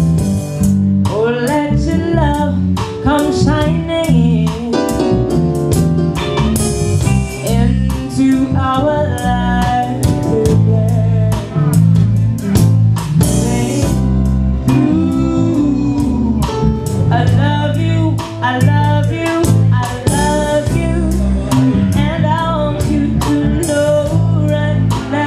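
Live reggae band playing: a steady bass line and drums, with guitar and a woman singing the melody.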